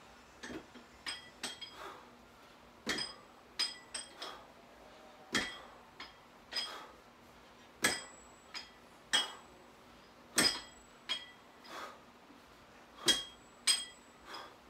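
Plate-loaded iron dumbbells clinking and knocking as they are lifted, swung and set down on the mat. The sharp metallic clinks come about once a second, irregularly, many with a brief ring.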